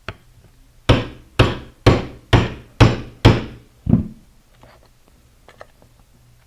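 Hammer striking a socket seven times, about two blows a second, driving a lock washer down onto a thumb turn's tailpiece; each blow rings briefly. A light tap comes just before the blows and a few faint clicks follow them.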